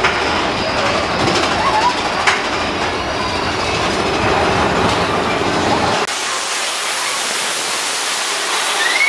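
Roller coaster mine train rumbling and clattering along its steel track. About six seconds in, the deep rumble cuts out suddenly and a steady rushing hiss remains.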